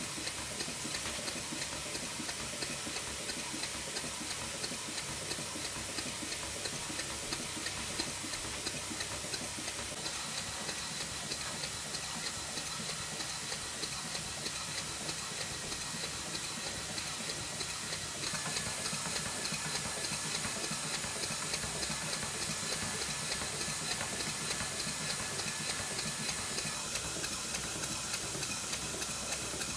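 Stuart Twin Victoria twin-cylinder model mill engine running on compressed air: a fast, even stream of exhaust chuffs over a steady hiss, with light ticking. It gets a little louder about two-thirds of the way through. The engine is mid-rebuild, and the builder says its valve timing is not quite right yet.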